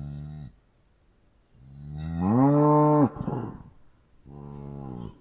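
Cows mooing. One moo tails off just after the start. A louder moo rises in pitch and cuts off sharply about three seconds in, and a shorter moo comes near the end.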